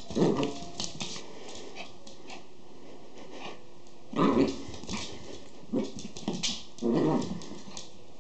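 A Schipperke and a pinscher growling in short, rough bouts while tugging at a toy together. The growls come at the start, about four seconds in and around seven seconds, with scuffling and clicking between them.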